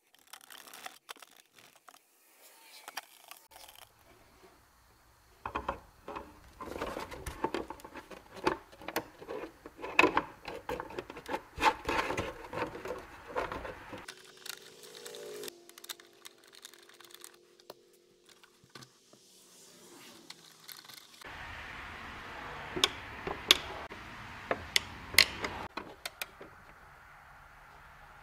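Hands handling and wiping a plastic scooter front fender on a workbench: rubbing and scraping of plastic and cloth with many light clicks and knocks of plastic and small tools, in separate stretches with quieter gaps.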